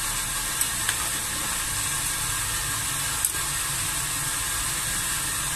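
Squash and vegetables cooking in a wok over a high gas flame: a steady hiss of sizzling and simmering, with a few faint clicks.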